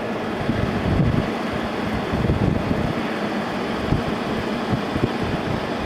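2017 General Electric 6000 BTU air conditioner running with its compressor on and its fan blowing: a steady rush of air with uneven low buffeting on the microphone. It is cooling properly, blowing cold air.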